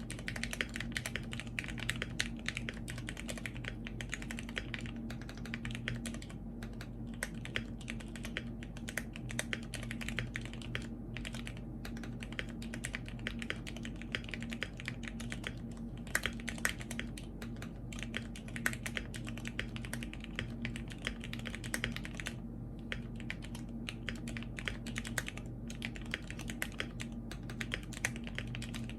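Typing on a Cannonkeys Bakeneko65 mechanical keyboard: a fast, continuous clatter of keystrokes with a few brief pauses, over a steady low hum.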